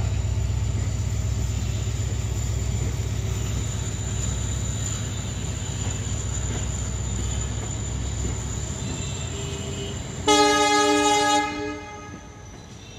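Passenger coaches of a departing diesel-hauled train rolling past on the rails with a steady low rumble. About ten seconds in, a diesel locomotive horn sounds one loud blast of about a second.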